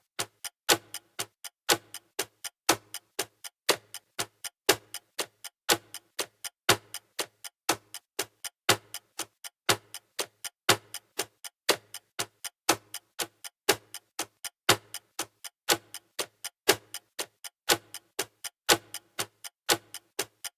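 Clock ticking in a steady, even rhythm: a louder tick about once a second with quieter ticks between.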